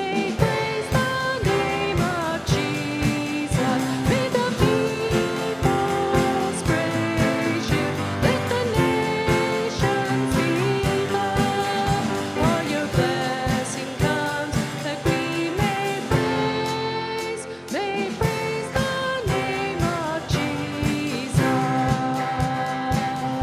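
A live worship band playing a praise song: a singer over acoustic guitar, piano, electric guitar and drums, with a steady beat.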